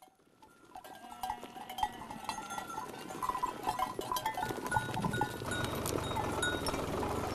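Scattered metallic clinks and short bell-like rings at several pitches, fading in from silence, with a steady low rumble building from about five seconds in.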